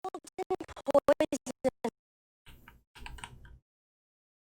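The recorded dialogue track of an animation being scrubbed on the timeline: a rapid stutter of short chopped fragments of a voice, about seven or eight a second for two seconds. A few fainter snatches follow, then it stops.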